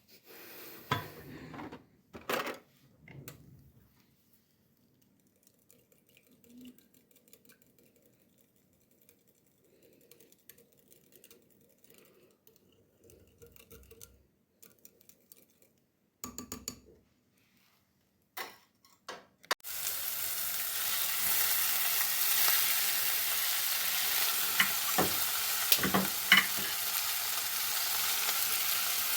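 A few scattered knocks and clinks of kitchenware. About two-thirds of the way in, food starts frying in a hot pan with a loud, steady sizzle, and a couple of utensil knocks come near the end.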